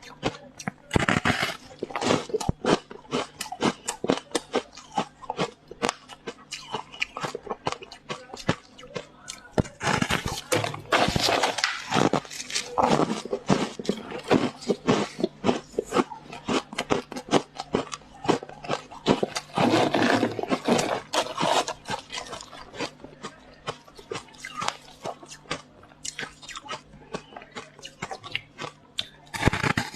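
A person biting and chewing frost ice close to the microphone: dense, irregular crunching that goes on throughout, with heavier flurries of crunches now and then.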